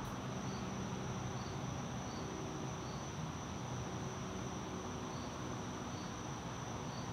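Insects chirping: a steady high trill with a short chirp repeating a little more often than once a second.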